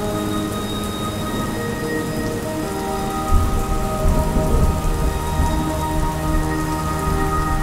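Steady rain falling, with a low thunder rumble rolling in about three seconds in. Soft sustained music notes sound underneath, changing pitch slowly.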